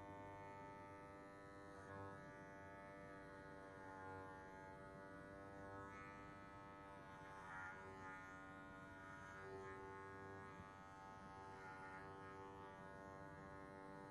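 Electric hair clippers buzzing quietly and steadily as they cut short grey hair.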